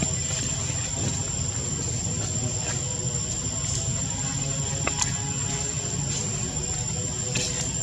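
Steady outdoor ambience dominated by a constant high-pitched insect drone over a low rumble, with a couple of faint clicks about five seconds in and again near the end.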